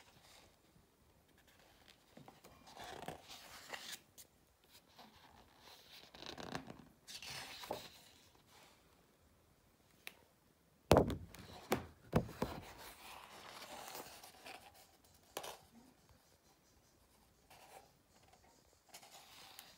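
Pages of a photography book being turned and handled: soft paper swishes and rustles come and go. A sharp knock about eleven seconds in is the loudest sound, followed by a few smaller taps.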